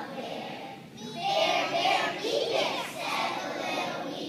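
A group of young children singing a song together, with a short break about a second in.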